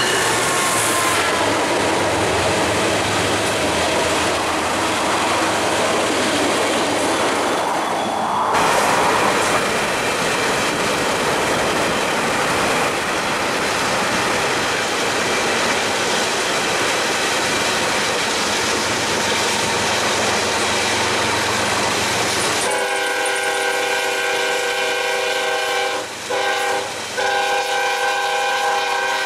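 Norfolk Southern freight train running: the diesel locomotive and cars rumble past, then wind and road noise from a car pacing the train. Near the end the locomotive's multi-note air horn sounds a long blast, broken twice briefly.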